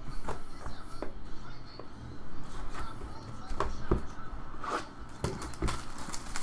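Hands opening and handling a trading-card hobby box: irregular small clicks, taps and rustles of cardboard and wrapping, with the busiest handling about four to five seconds in.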